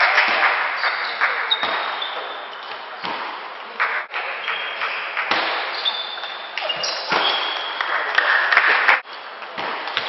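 Table tennis rally: the celluloid ball clicking sharply off the rubber-faced bats and the table in quick succession, over a steady hum of hall background noise.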